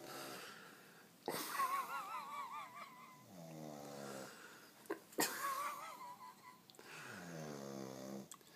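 A sleeping man snoring heavily: two loud snoring breaths about four seconds apart. Each starts suddenly with a rasping, wavering whistle and then runs on as a lower drawn-out tone that falls in pitch.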